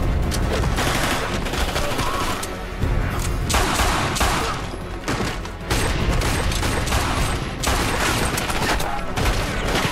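A dense barrage of handgun gunfire, many shots in quick succession with no real pause.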